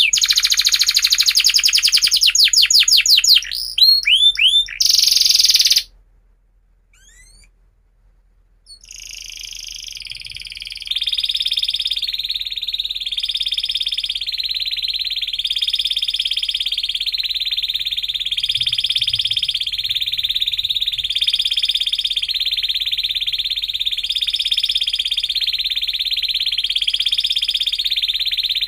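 Domestic canary singing: fast rolling trills, a short break about six seconds in, then one long unbroken trill that swells and fades about every second and a half.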